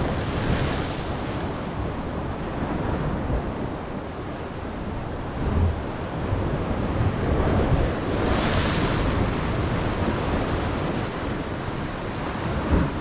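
Sea waves surging and breaking against the rocks at the foot of a cliff, in a steady wash of surf with two louder swells, about a second in and again around eight seconds in. Wind buffets the microphone.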